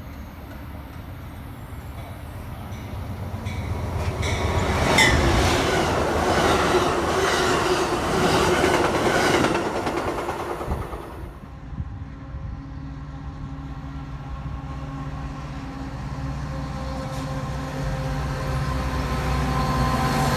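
A train passing close by, loudest through the middle, with wheels clattering over the rail joints. After an abrupt change, a Metra diesel locomotive approaches with a steady engine hum that slowly grows louder.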